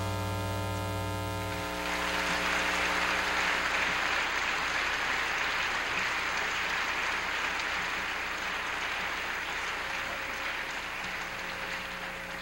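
Audience applause, breaking out about two seconds in as the band's last held chord stops, and thinning out near the end. A steady electrical hum from the recording sits underneath.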